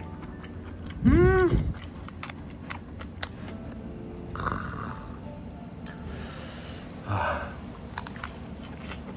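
A man's drawn-out nasal hum of relish about a second in, rising then falling in pitch. Then soft mouth clicks and two short rustles as a lettuce wrap of braised pork trotters (jokbal) is handled and bitten.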